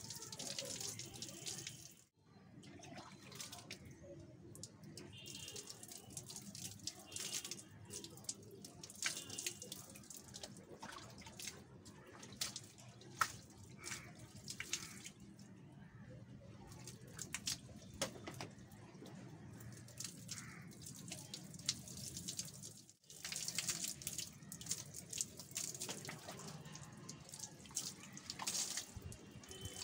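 Water poured from a plastic mug over long wet hair, splashing and dripping onto a wet concrete floor in irregular spatters. The sound breaks off briefly twice.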